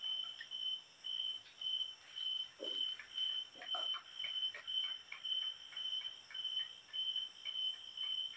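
A cricket chirping steadily at night, about two short high chirps a second, with fainter scattered calls in the middle.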